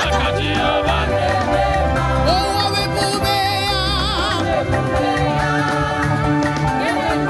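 Gospel praise-and-worship music played loudly and steadily, with a pulsing bass line under a melody that bends and wavers.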